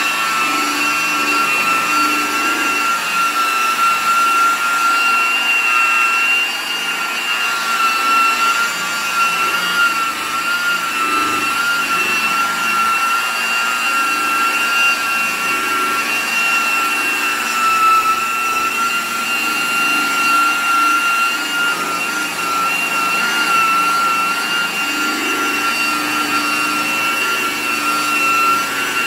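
Electric buffer with a foam pad running steadily at speed, buffing glaze onto a plastic headlight lens in the final polishing stage. Its motor gives a steady high whine with a second, higher tone above it.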